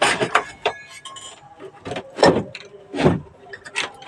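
Handling noise on a workbench: a series of sharp clicks, knocks and rattles as the opened stereo unit and its wiring are moved about. The two loudest knocks come about two and three seconds in.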